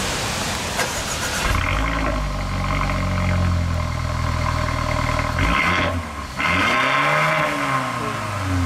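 Car engine catching about a second and a half in and running at a deep, steady idle. From about six seconds in it is revved, the pitch rising and falling back, with exhaust rush over it.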